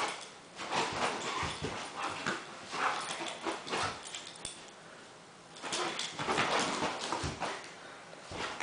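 Dog making whining and yipping play noises in bursts, with a brief lull about midway.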